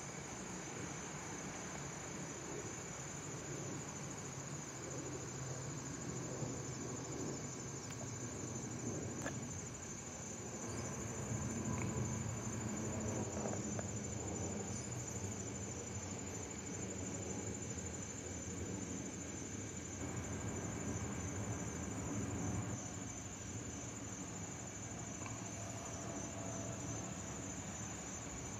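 Steady high insect trill, typical of crickets, with a faint low rumble from a jet airliner at cruising altitude that swells about a third of the way in and again later.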